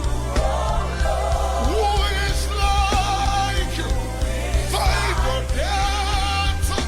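Live gospel worship music: a band with steady bass and drum hits under a melody, with singing or wordless vocal lines.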